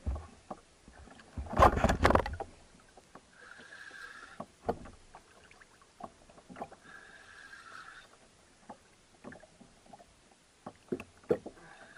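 Spinning reel being cranked in short runs of about a second, roughly every three and a half seconds, as a jigging rod is pumped against a hooked amberjack. Scattered clicks and knocks come through, with a louder burst of noise about two seconds in.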